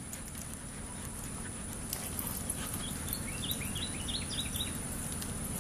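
A dog gives a quick run of short, high whimpering yips about three seconds in, over steady low background noise.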